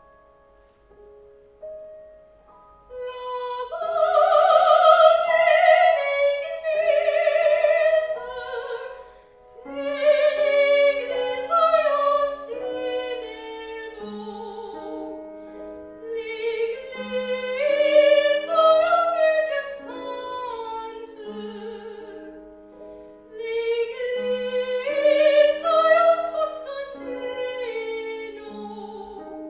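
Classical singer with strong vibrato performing an art song or aria with piano accompaniment. The piano plays alone for the first few seconds before the voice enters, and the voice sings in phrases with short breaks, the piano sustaining chords beneath.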